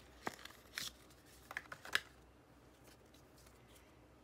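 Hands taking a stack of photo cards out of a small cardboard box: a few short rustles and taps of card and paper in the first two seconds.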